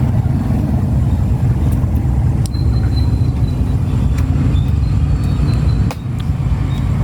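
Steady low background rumble with a few faint clicks, one about two and a half seconds in and one about six seconds in.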